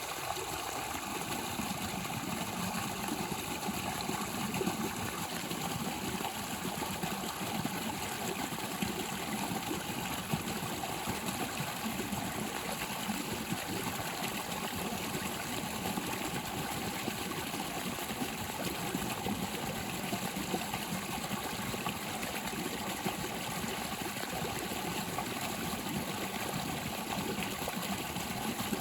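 Waterfall on a creek: water pouring and splashing in a steady, unbroken rush.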